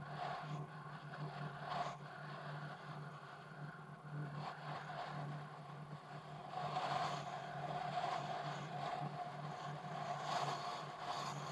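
A car driving along a road: steady engine and tyre noise, with a few brief rattles.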